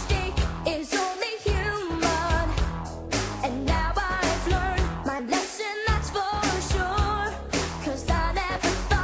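Pop song with a male lead voice singing over a steady drum beat and backing instruments.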